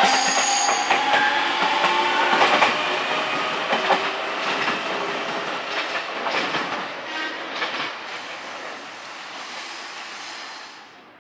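JR Central 373 series electric train running past over rail joints, wheels clacking, with a steady whine in the first two or three seconds. The sound fades steadily as the train moves away.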